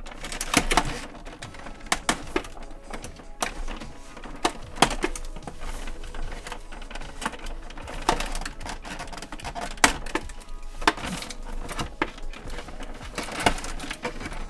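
Clear plastic packaging bag around action figures crinkling and rustling as it is handled and cut at with a hobby knife, with irregular sharp crackles and taps.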